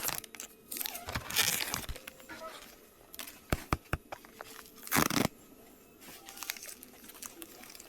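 Irregular rustling and crinkling, with a few sharp clicks in between, as something is handled.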